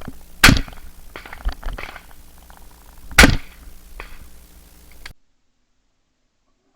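Two shotgun shots about two and a half seconds apart, with a few fainter clicks between and after them. The sound cuts off suddenly about five seconds in.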